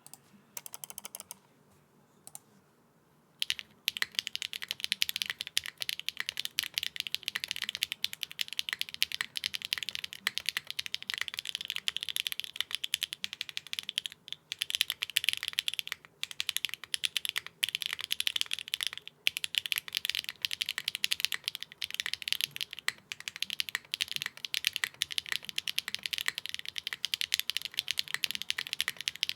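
Custom 65% mechanical keyboard with clacky linear switches being typed on fast, a dense run of sharp keystroke clacks. A few lone clicks come first, and after a short pause the continuous typing starts about three and a half seconds in, with only brief breaks.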